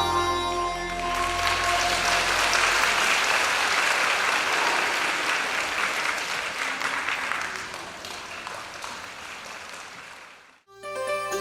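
Audience applause that swells after a piece of music ends about a second in, then fades away over several seconds; a new piece of music starts near the end.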